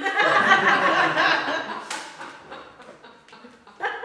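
A small audience laughing, loudest in the first two seconds and then dying away, with a few sharp knocks and a louder knock near the end.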